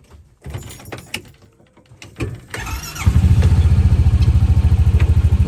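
Honda Pioneer 700 side-by-side's single-cylinder engine cranking briefly and catching about three seconds in, then idling with an even, rapid pulse. A few clicks and knocks come before the start.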